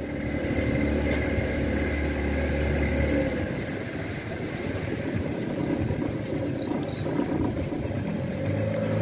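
Outboard motor of a small tour boat running steadily, heard from aboard. Its deep hum drops away about three seconds in, leaving a rougher running sound, and a steady tone returns near the end.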